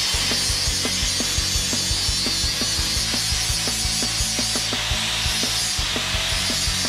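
Angle grinder running and grinding metal, a steady high hiss with a rapid, regular clicking under it.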